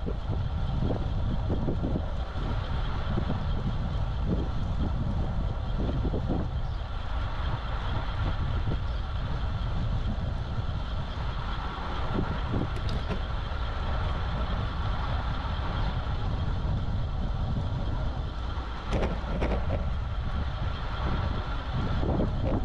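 Steady wind rumble on the microphone with the tyre and road noise of a road bike riding along, broken by a few short clicks.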